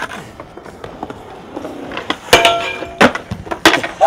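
Skateboard and falling skaters hitting concrete: a sharp smack about two seconds in, then two more knocks in the next second and a half.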